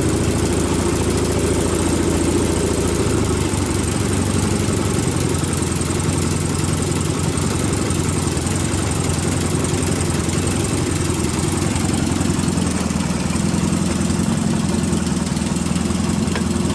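Yamaha XS650 air-cooled parallel-twin engine idling steadily, freshly rebuilt with new valves and adjusters, its ignition timing not yet set with a strobe.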